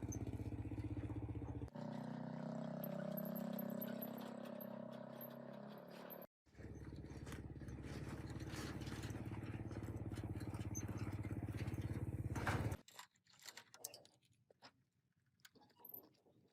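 Small Robin petrol engine of a plate compactor running steadily, heard in edited segments that cut abruptly about two seconds in and about six seconds in, then stops about thirteen seconds in. Faint scattered clicks and taps follow.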